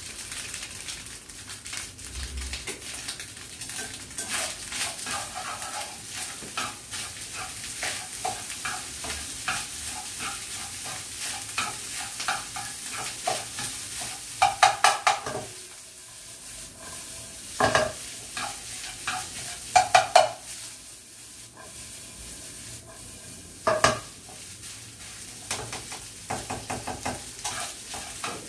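Fried rice sizzling in a frying pan over a gas flame while a spatula stirs and scrapes it, the rice being stir-fried until dry. About halfway through the spatula knocks sharply against the pan in a quick run, then a few single loud knocks follow.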